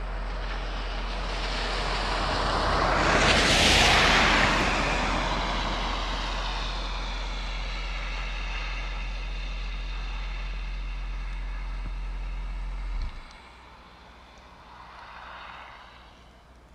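A vehicle passes close by, swelling to its loudest about four seconds in and then fading away slowly. A steady low hum underneath cuts off suddenly about thirteen seconds in, and a fainter pass follows near the end.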